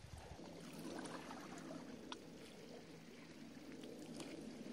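Faint lapping of calm seawater against shore rocks, with a couple of soft ticks about two and four seconds in.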